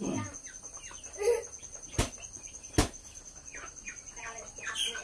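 Broiler chickens calling in short scattered bursts, with two sharp clicks under a second apart midway that are the loudest sounds.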